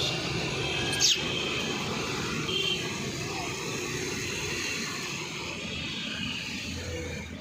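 Steady road and traffic noise from a moving taxi, with a short sharp click about a second in.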